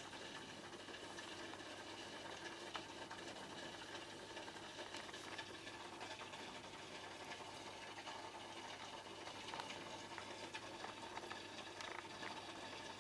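Aquarium filter pump running with a steady low hum, and water bubbling at the surface, faint, with scattered small ticks.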